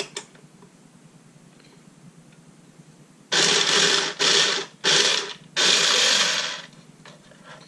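Automatic playing card shuffler running in four short bursts starting about three seconds in. Its motor and gears whirr as the rollers pull cards from both stacks into the middle tray.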